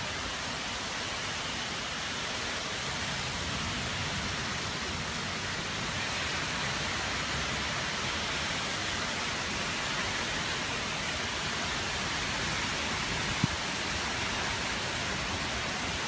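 Rain falling steadily in a storm downpour, an even hiss throughout. One short, sharp click about thirteen seconds in.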